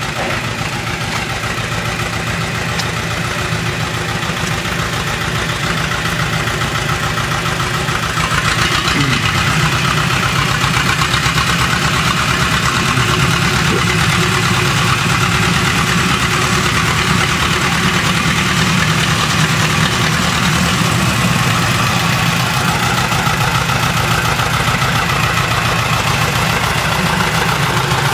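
Diesel engine of a Fortschritt T174/2 wheeled excavator running steadily as the machine drives up. It gets louder about eight seconds in as the excavator comes close.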